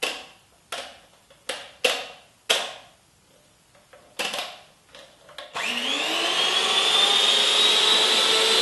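Several sharp clicks and knocks, then an electric hand mixer switches on about five and a half seconds in. Its motor whine rises quickly in pitch as it spins up, then runs steadily.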